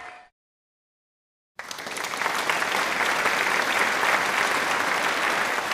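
An audience applauding steadily, starting about a second and a half in after a moment of silence; at the very start a sung note fades out.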